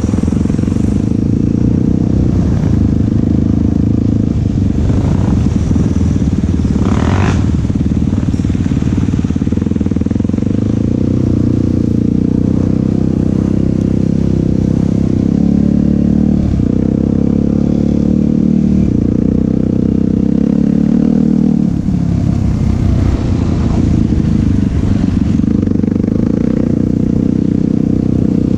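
Yamaha YFZ450 SE sport quad's single-cylinder four-stroke engine running under load, its pitch rising and falling with the throttle. A brief burst of noise cuts in about seven seconds in.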